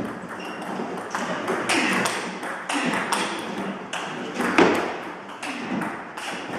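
Table tennis rally: the ball clicking sharply off the bats and the table in quick succession, with the loudest hit about halfway through.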